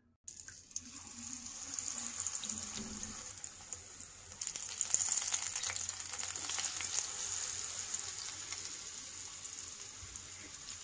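Batter-coated cabbage rolls sizzling and crackling as they deep-fry in hot oil in a frying pan. The sizzle gets louder about four seconds in and then holds steady.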